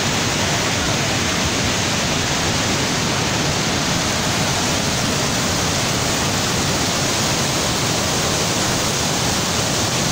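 Muddy mountain river in flash flood, steady loud rushing of the torrent.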